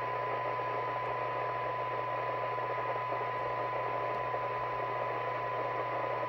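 Thunderpole T800 CB radio's speaker playing a steady test tone nearly buried in receiver hiss, with a low hum underneath. The tone is a signal generator's test signal of only a fraction of a microvolt, near the limit of the receiver's sensitivity, while the front-end coils are being tuned.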